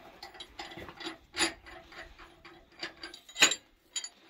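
Irregular metallic clicking and clanking of a hand-worked mechanism at the base of a recovery truck's boom, with two louder clacks about one and a half and three and a half seconds in.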